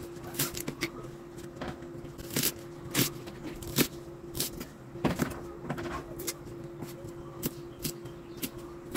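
Chef's knife chopping spring onions and leafy herbs on a wooden chopping block. About twenty uneven knocks of the blade on the wood come at an irregular pace, over a steady hum.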